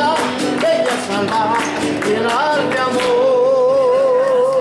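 A folk song sung to guitar, with hand-clapping keeping the beat. Near the end a voice holds one long wavering note.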